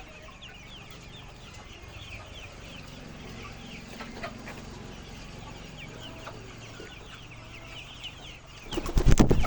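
A flock of laying hens clucking and calling together, many short falling calls overlapping. Near the end come a run of loud knocks and rattles, much louder than the birds.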